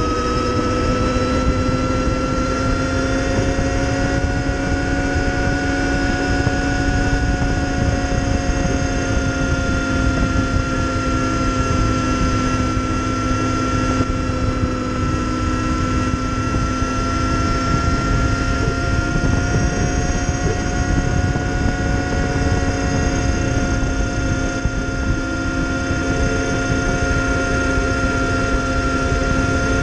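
Energica Ego electric motorcycle under way: the electric motor and drivetrain give a steady whine of several pitches over wind and road noise. The whine rises a little in the first few seconds, then holds level.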